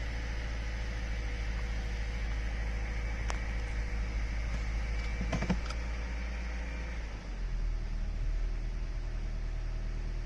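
Subaru Legacy Touring Wagon's boxer engine running steadily, with a few sharp clicks near the middle; about seven seconds in, the low running sound dips and settles into a different steady pattern. The owner records this engine for an abnormal noise heard at start-up.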